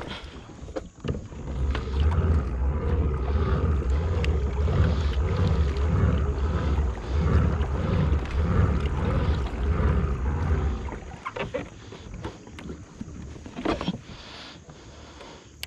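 A kayak moving on the water, heard through the camera microphone as a loud, uneven low rumble that eases off after about eleven seconds. A few sharp knocks follow near the end.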